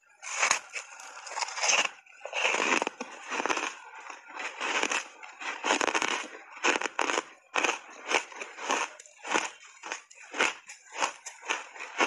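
Close-miked crunching as a block of ice coated in matcha powder is bitten and chewed: a dense run of crunches over the first few seconds, then steady chewing crunches about two to three a second.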